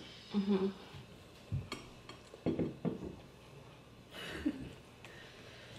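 Quiet eating at a table: a fork clicking and scraping in a bowl, with soft mouth sounds and a brief low murmur near the start.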